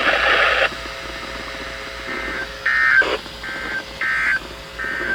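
Radio hiss that cuts off suddenly under a second in. Then, from about two seconds in, a run of short electronic two-tone beeps, five in about three seconds, with a single click among them.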